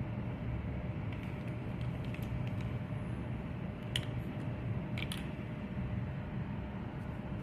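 Steady low background hum, with a few light clicks and taps, the sharpest about four and five seconds in.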